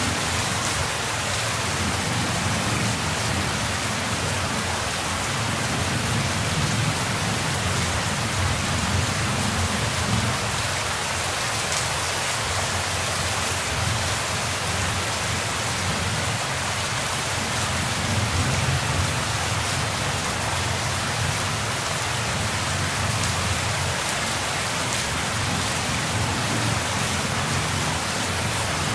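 Rain falling steadily in a dense, even hiss, with a low rumble underneath that swells and fades several times.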